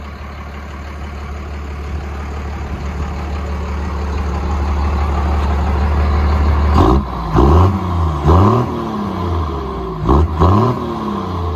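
Exhaust of a 1997 Dodge Ram 2500's 5.9 L Cummins straight-six turbodiesel running with a muffler delete, steady and growing louder, then blipped in a series of quick revs about a second apart from about seven seconds in.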